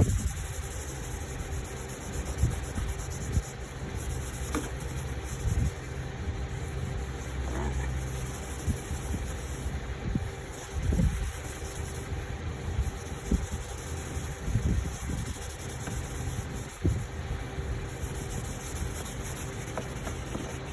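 Low steady rumble with irregular thumps, over the faint rubbing of wet sandpaper worked in circles on a plastic headlight lens.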